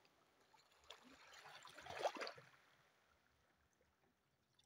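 Shallow seawater faintly sloshing and trickling as a man shifts in it to get up, with a brief louder splash about two seconds in.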